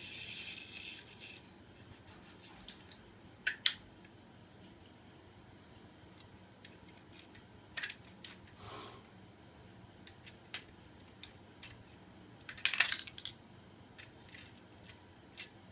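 Scattered light clicks and clatters of a small portable ceiling fan's parts being handled during reassembly, loudest in a quick cluster of clicks a little before the end. A faint hiss fades out in the first second or so.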